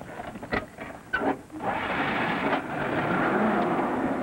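A few short clicks, then, from about a second and a half in, a steady rushing noise.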